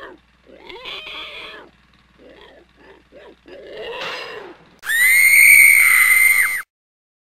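Rough grunting and squealing from a voice, then a loud, high-pitched scream held for nearly two seconds that cuts off abruptly.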